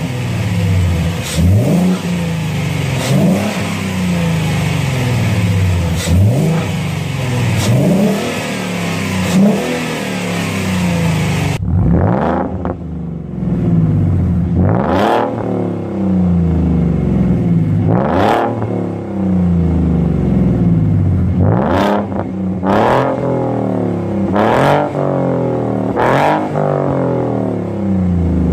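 Car engine revved repeatedly in quick blips through the exhaust. Each rev climbs sharply and then falls back toward idle. About halfway through the sound turns duller and the blips come at more irregular spacing.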